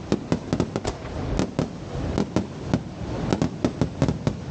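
Fireworks going off: an irregular string of sharp bangs, about three a second.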